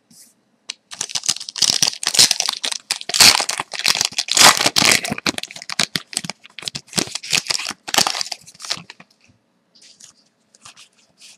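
Foil wrapper of a 2012-13 Artifacts hockey card pack crinkling and tearing as it is ripped open by hand, then fainter rustles near the end as the cards are slid out.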